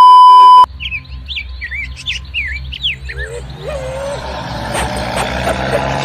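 A loud, steady test-tone beep lasting under a second, then birds chirping in quick rising and falling whistles. From about halfway a truck engine's low rumble and road noise build up underneath.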